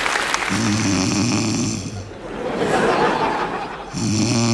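A person snoring loudly. A rough snore on the in-breath about half a second in gives way to a breathy out-breath, and a second snore begins near the end.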